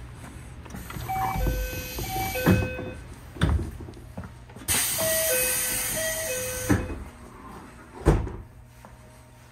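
A train's two-tone door chime sounding twice, each a high-low-high-low pattern, with a loud burst of hissing air during the second as the pneumatic doors work. Two dull thuds fall between and after the chimes.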